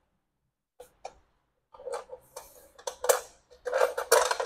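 Light metallic clicks and scraping of a hand tool working the fasteners of a BMW E30's front valance and its mounting tin. A couple of single clicks come about a second in, then more frequent clicking and scraping that gets louder toward the end.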